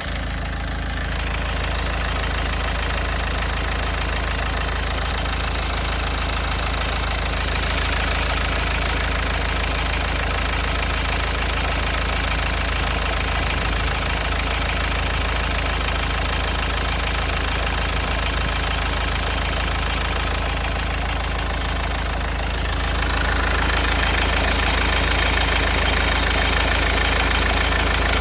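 SsangYong Korando engine running with a knock, which the owner suspects comes from a failing crankshaft pulley; it knocks cold and warm, mostly under load when accelerating. The engine sound gets louder late in the stretch.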